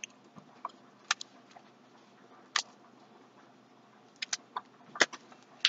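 Fluffy slime being handled: scattered faint clicks and small pops, a few single ones and then a quick cluster near the end.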